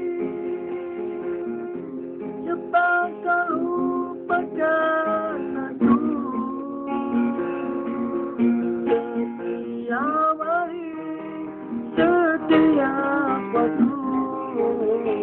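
Acoustic guitar strumming chords in an instrumental passage of a song.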